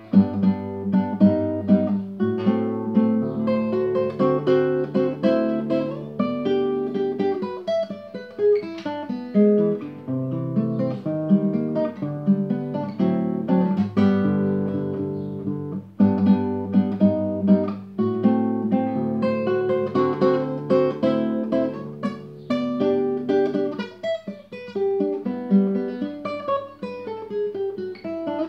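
Solo classical guitar played fingerstyle in drop-D tuning (DADGBE): plucked melody notes over a moving bass line, with falling runs of notes and a brief break about halfway through.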